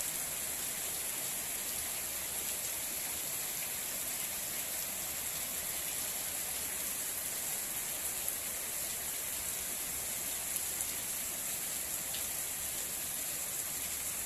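Heavy rain falling steadily, a continuous hiss with faint scattered drop ticks.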